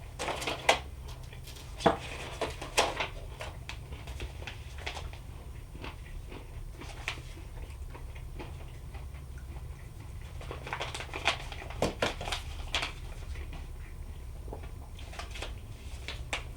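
Crunchy trail mix of dried banana, apple and pecan pieces being chewed and handled, as irregular crunches and crackles that come in clusters. A steady low hum runs beneath.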